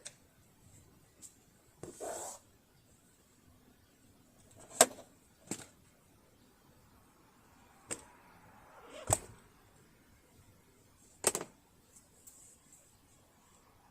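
Scattered sharp clicks and knocks of hard objects being handled and set down, about seven in all, the loudest about five seconds in, with brief rustling near two and nine seconds.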